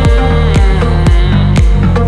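Electronic dance music with a heavy bass and a steady beat, about two beats a second.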